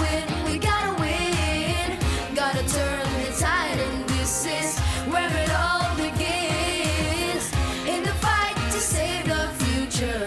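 Pop song backing track with a steady drum beat and bass line, with sung vocal runs and ad-libs over it.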